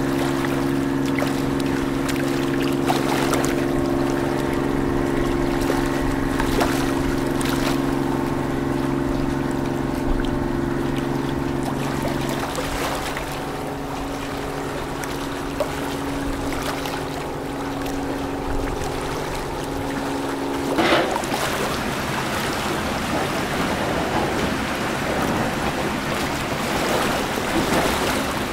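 Boat engine running steadily with a low hum, its tone shifting about twelve seconds in and stopping about twenty-one seconds in; after that, water lapping and wind noise on the microphone.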